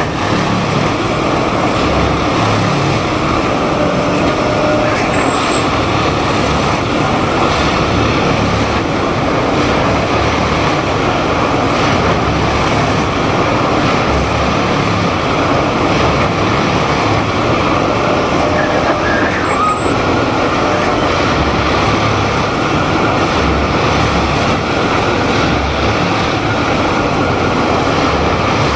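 Plasser & Theurer ballast tamping machine running: a loud, steady heavy-diesel machine noise with an uneven low pulsing throughout.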